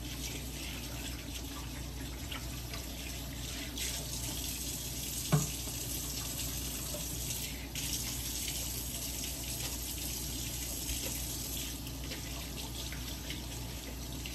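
Tap water running steadily into a kitchen sink, with one sharp knock about five seconds in.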